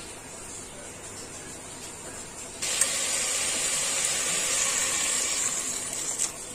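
Vegetables sizzling quietly in a hot pressure cooker pot; about two and a half seconds in, water is poured in and the pot breaks into a loud steady hiss and sizzle that lasts about three and a half seconds.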